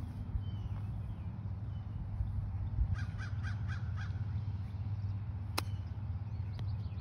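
A golf club strikes the ball on a short chip shot with one sharp click about three-quarters of the way through. Before it, a bird gives a quick run of about six harsh calls, over a steady low rumble.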